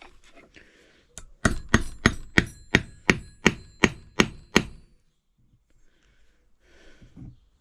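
Hammer tapping on steel, about ten quick blows roughly three a second, each with a short metallic ring, as parts of the pipe wrench are driven back together. Faint handling noise follows near the end.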